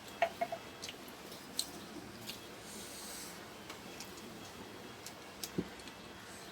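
Eating at a meal of rice and egg: scattered small clicks and taps, with a brief scraping rustle about three seconds in.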